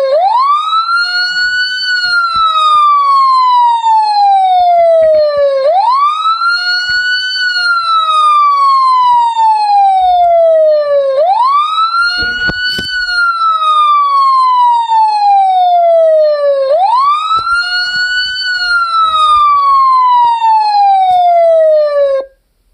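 Police car siren in its slow wail: each cycle the pitch sweeps up quickly and then falls slowly, about every five and a half seconds, four times over. It cuts off abruptly near the end.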